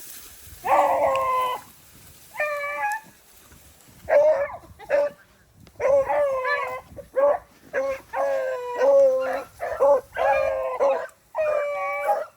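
Rabbit-hunting hounds baying on a chase: a run of about a dozen drawn-out, wavering bawls, the dogs giving voice as they trail a rabbit.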